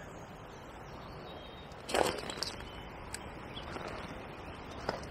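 Quiet outdoor lakeside ambience, a steady low hiss with faint bird chirps. About two seconds in comes a short rustling knock, followed by a few light clicks.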